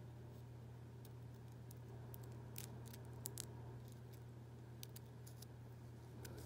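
Faint scattered clicks and crackles of metal tweezers picking apart a dry, brown Tecoma stans (yellow bells) seed pod, over a steady low hum.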